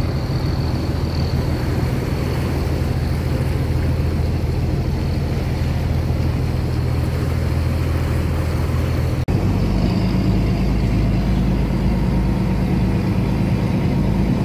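Boat engine running steadily under way, a low, even hum with the rush of water and wash around the hull. About nine seconds in the sound drops out for an instant and the hum comes back a little higher.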